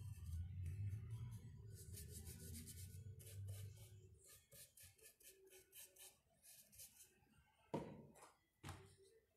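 Faint scratchy strokes of a paintbrush working PVA paint, then two light knocks about a second apart near the end as small paint jars are handled on the table.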